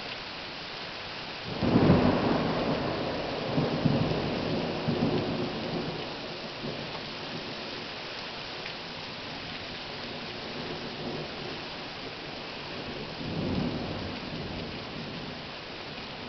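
Heavy rain pouring steadily, with a loud peal of thunder about a second and a half in that rumbles on in several swells for a few seconds. A fainter roll of thunder comes later on.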